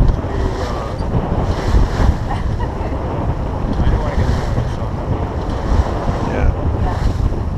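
Wind buffeting the microphone over the rush of water along the hull of a 28 ft Pearson Triton sloop under sail, with repeated hissing surges of foam and spray.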